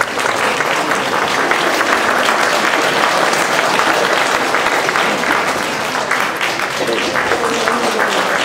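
Audience applauding steadily, many hands clapping densely throughout, with voices mixed in.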